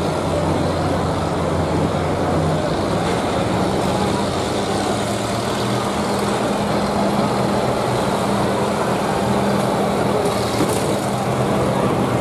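Engines of several combine harvesters running hard as they drive and ram on a dirt track, a steady mechanical drone; one engine's note steps up about three seconds in.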